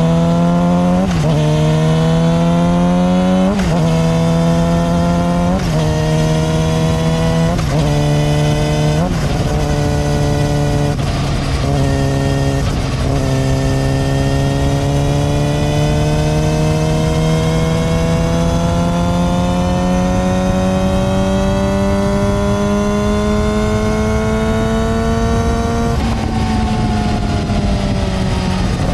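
Yamaha R6 inline-four engine and drivetrain under way, heard close to the chain. The revs climb and drop back through several quick upshifts, then make one long steady pull with the pitch rising, easing off near the end. It is running on a solid metal front sprocket, which gives a higher-pitched hum than the stock rubber-dampened sprocket.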